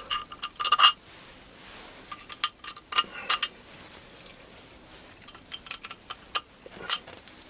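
Light metallic clinks and taps as steel Allen bolts go into the holes of an old Myford ML7 cross-slide and the cross-slide is handled and turned over. The clicks come in small scattered clusters, with the sharpest one near the end.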